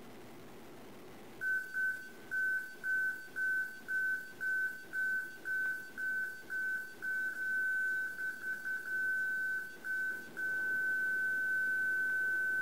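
Laser marker's electronic beeper sounding a single high tone. It starts as evenly spaced beeps about twice a second, then quickens into a rapid flurry, and settles into an unbroken tone for the last couple of seconds.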